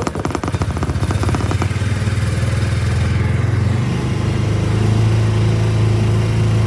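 Vehicle engine and road noise heard from inside the cab as the vehicle pulls away and speeds up. A rapid pulsing at first gives way to a steady low drone that grows louder about four seconds in.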